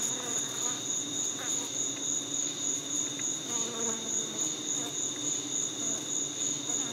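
Steady high-pitched trilling of night insects in two pitches, like crickets, over a fainter low hum of honeybees clustered on the hive.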